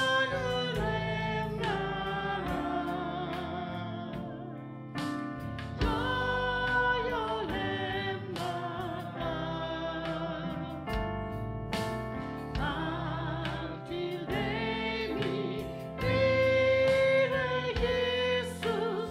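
Singing of a Christian worship song with instrumental accompaniment: held notes with vibrato and phrases that change every second or so.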